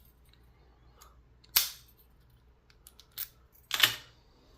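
A few sharp clicks and snaps from handling a solid brass American 5560 padlock and its key: one sharp snap about a second and a half in, a small click past three seconds, and a louder rattling clack near four seconds.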